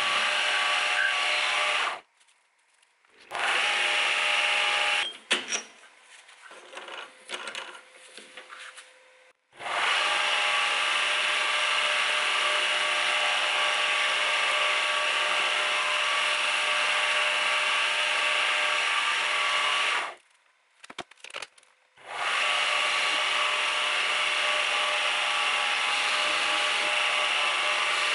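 Metal lathe running and turning a steel bar, a steady hiss of the cut over the machine's whine. It cuts off abruptly twice, and in one quiet stretch there are a few light clicks and knocks.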